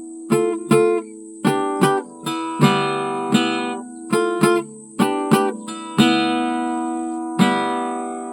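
Acoustic guitar strumming chords in an uneven rhythm, some short and choppy, others left to ring out, with a long ringing chord about six seconds in.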